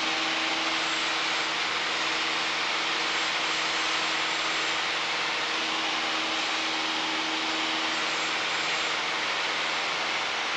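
Steady drone of a Piper Warrior's four-cylinder Lycoming engine and propeller in flight, mixed with wind rush, heard inside the cabin.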